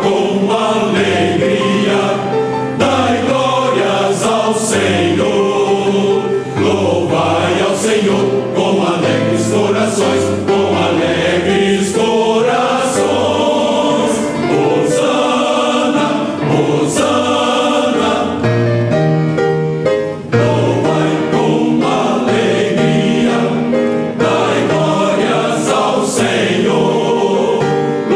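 Choir singing a Christian worship song in sustained, steady chords.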